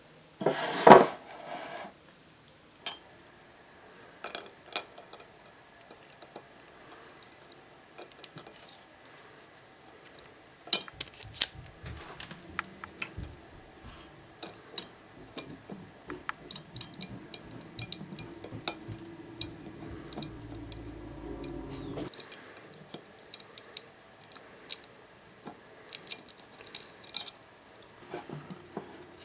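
Rubik's Cube pieces and a chopstick clicking and tapping against each other and the inside of a glass jar in many small irregular knocks. For about ten seconds in the middle a low steady hum runs under the clicks.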